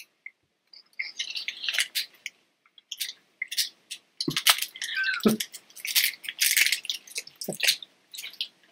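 Snack-eating noises: irregular crisp crackles and clicks, with a few dull low knocks, as a snack is chewed and handled.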